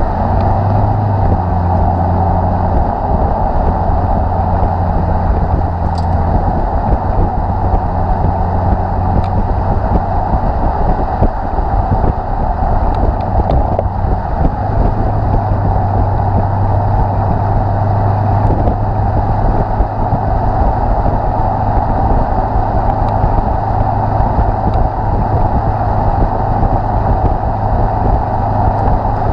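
Lexus IS F's 5.0-litre V8 through an X-Force cat-back exhaust with stock headers, heard right at the tailpipes while cruising at a steady speed: an even low exhaust note under steady road noise.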